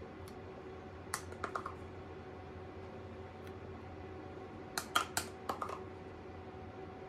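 Two short clusters of light clicks and taps, one about a second in and a louder one about five seconds in, over a steady low hum.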